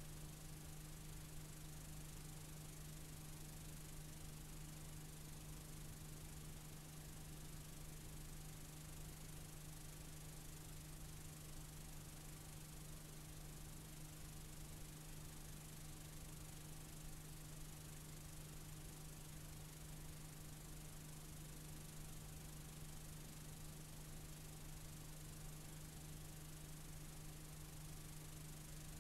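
Faint steady tape hiss with a constant low hum, the noise of a blank stretch of analogue videotape.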